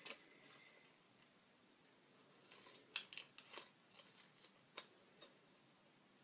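Small craft scissors snipping paper: faint, sharp snips, a quick run of about four around three seconds in and two more near five seconds.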